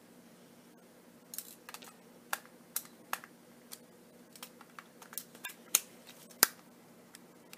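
Irregular small plastic clicks and taps of a compact digital camera being handled as its battery and SD card are put back in, with two sharper clicks near the end.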